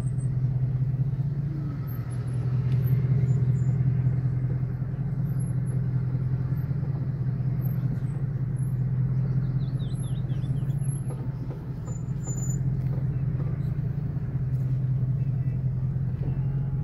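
Car running along a rough ranch road, heard from inside the car: a steady low engine and road drone that swells and eases. A short run of faint high chirps comes about halfway through.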